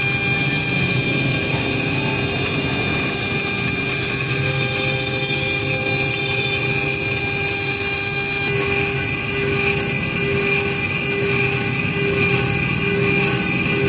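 Spindle of a small CNC micro mill running steadily, its end mill cutting aluminium plate: a steady whine over the grinding noise of the cut. About eight and a half seconds in, the sound of the cut changes.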